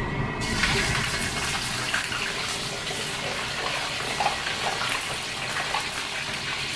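A sea bass steak lowered into very hot oil in a wok for deep-frying: the oil breaks into a sizzle about half a second in and keeps frying steadily.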